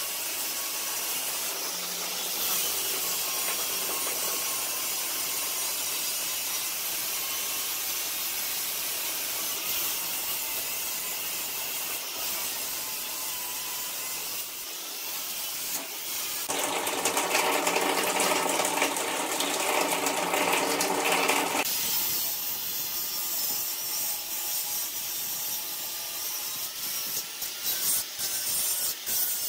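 Corded angle grinder with a thin cutting disc cutting through square steel tubing, its motor whining steadily with the rasp of the disc in the metal. About two-thirds of the way through, the grinding gets louder for about five seconds, then settles back.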